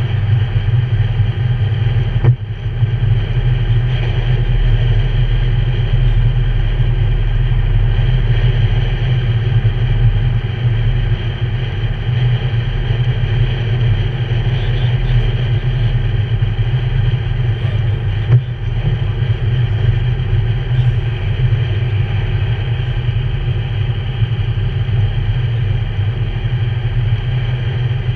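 Steady low rumble of a car's engine and tyres heard from inside the cabin while driving on a wet freeway, with two brief thumps, one about 2 seconds in and one about 18 seconds in.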